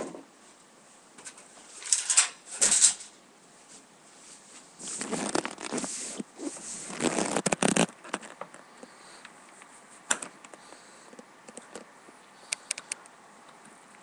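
Handling noises: bursts of rustling and rubbing, the longest lasting a few seconds, then a few sharp clicks about ten seconds in and again near the end.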